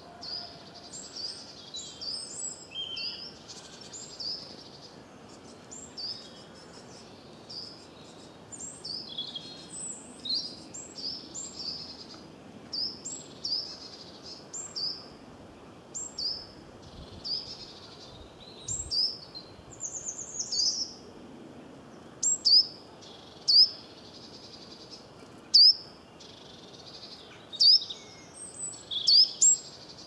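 Small songbirds calling: a steady run of short, high chirps and tweets, with several sharper, louder chirps in the last third.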